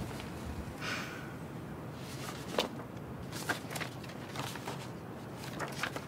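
Sheets of paper being handled, with soft rustling and a few light taps as documents are looked through, over quiet room tone.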